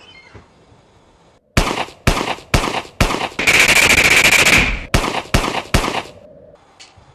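Gunfire from off-screen inside a house: four single shots about half a second apart, then a sustained rapid burst of automatic fire lasting about a second and a half, then three more shots. The shooting breaks out suddenly about a second and a half in and stops about six seconds in.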